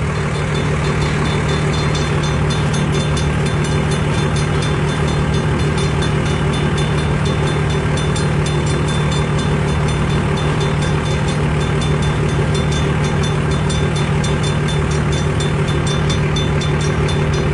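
A long CN mixed-freight train rolling past at close range: a steady loud rumble with a constant low hum and a dense run of small clicks from the wheels on the rails.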